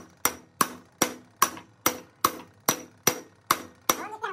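Steady, rhythmic hammer blows on a steel bar resting on a pad, about ten strikes at roughly two and a half a second, each with a short metallic ring. They drive a part down onto the splined drive shaft of a Doosan DX140W excavator's hydraulic pump during reassembly.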